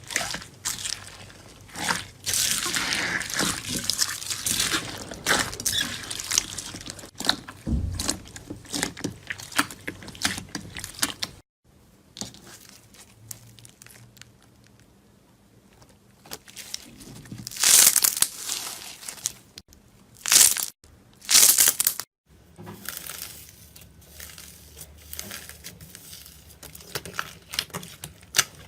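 Slime being handled up close: crunchy, crackling squeezing and pressing sounds from several short clips cut together, with a quieter stretch in the middle and a few loud, sharp crunches after it.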